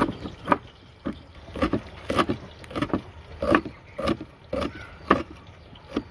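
Knife cutting fresh green garlic, with short sharp strokes at about two a second.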